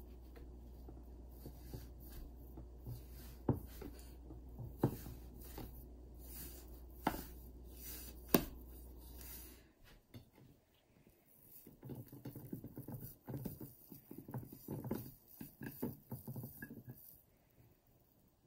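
Hands handling a round slab of gingerbread dough on a ceramic plate: four sharp taps over a low steady hum in the first half, then a run of soft, irregular rustling and patting as the dough is gripped and lifted off the plate.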